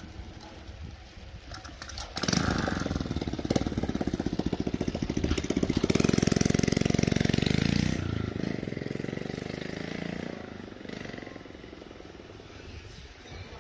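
A small motorcycle engine passing close by: it comes up suddenly about two seconds in, is loudest a few seconds later, then fades away.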